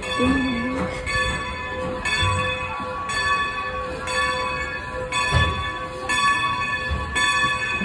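Steam locomotive's bell ringing steadily, about one stroke a second, as the engine moves slowly along the station track.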